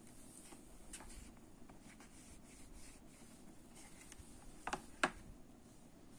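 Marker pen drawing lines on a whiteboard, faint strokes and rubbing. A little past the middle come two sharp clicks about a third of a second apart, the loudest sounds here.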